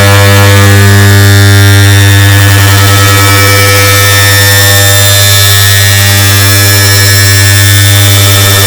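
Air conditioner start-up sound digitally stacked into one very loud, distorted drone: a steady low hum with a dense buzz of overtones and noise over it.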